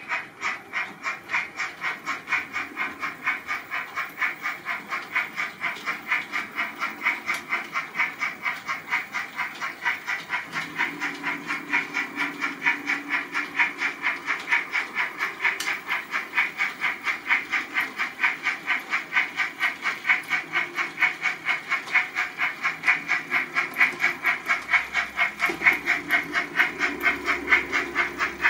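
H0-scale model steam locomotive running, its sound unit giving a steady rhythm of hissing chuffs, about two to three a second, growing louder near the end as the engine comes close.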